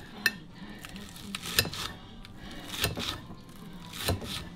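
Kitchen dishes and utensils clinking and knocking: four separate sharp knocks, a little over a second apart.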